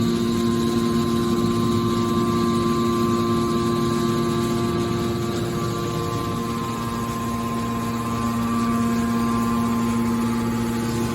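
Hydraulic metal baler's power unit running: a steady machine hum with a whine, its tone easing for a few seconds midway and then returning.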